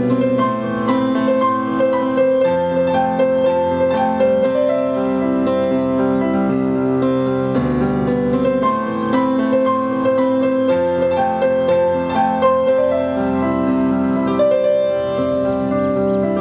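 Grand piano played solo: a slow, flowing piece of held chords over a low bass, with one middle note sounding again and again through the phrases.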